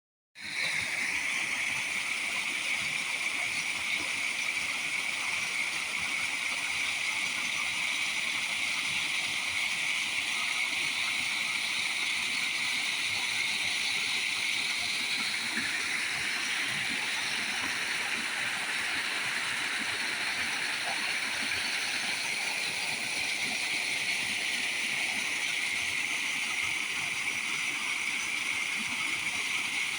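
Waterfall on a river, water rushing steadily in an unbroken hiss.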